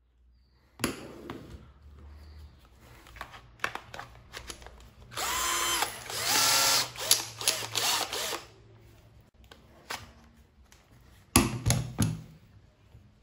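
HiLDA 21V cordless drill's motor running in a few short trigger pulls, spinning up with a rising whine and stopping after each pull. Its 21V pack has a fault: it can't run the drill for long, because the BMS cuts the power under load. Handling knocks and clicks, with a few sharp plastic clicks near the end as the battery pack is taken out.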